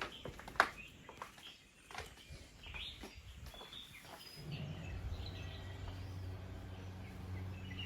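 Small birds chirping, with a single sharp click about half a second in. From about four and a half seconds a steady low hum sets in under the birdsong.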